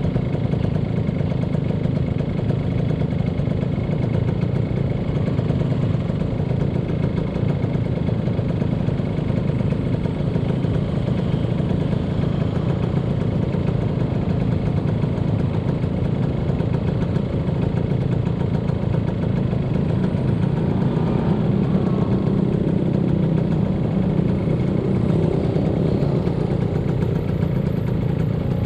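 Yamaha SS motorcycle engine running steadily while riding, its low drone mixed with road and wind noise, with no revving or gear changes standing out.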